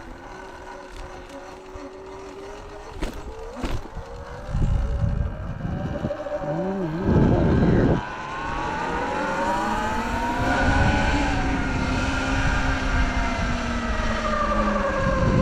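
Sur-Ron electric dirt bike's motor and belt drive whining while riding, the pitch climbing with speed from about eight seconds in and then easing back down. There is a short, louder rush of noise about seven seconds in.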